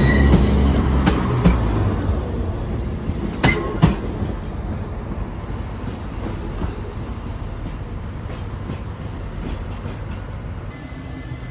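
ScotRail Class 170 Turbostar diesel multiple unit moving past close by and pulling away, its underfloor diesel engines running. Its wheels click over a rail joint in two pairs, at about one second and three and a half seconds in, and the sound then fades as the train draws off.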